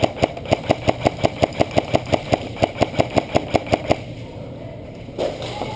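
Airsoft gun firing a rapid string of about twenty shots, five or six a second, that stops about four seconds in. A single thump comes about a second later.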